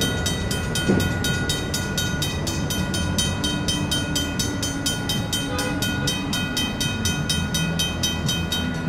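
Griswold mechanical crossing bells ringing in rapid, even strokes, about five a second, over the low rumble of a passing train. The bells stop near the end.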